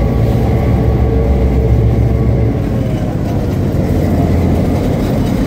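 EMD FP7 diesel locomotives passing slowly on the adjacent track, a loud steady low engine hum. The hum changes about two and a half seconds in as the first unit's engine moves past.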